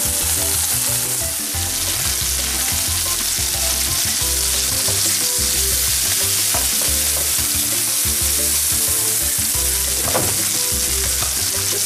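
Mozzarella slices frying in butter in a frying pan, a steady sizzle as the cheese melts and browns.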